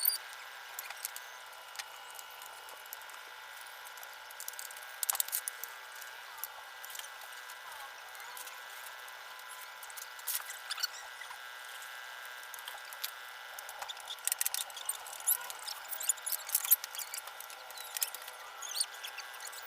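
Irregular small clicks, taps and short squeaky scrapes of hand work on small metal parts, over a faint steady hum.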